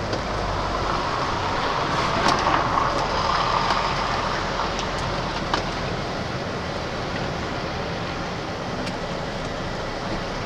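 MAN TGX lorry's diesel engine running with road noise, heard from inside the cab as it pulls in. A broad rushing noise swells about two seconds in and dies back after about four seconds, with a few sharp clicks.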